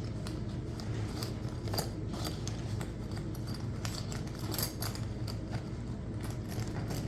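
Scattered light clicks and rattles of a tool bag pouch being opened and its contents handled, over a steady low hum.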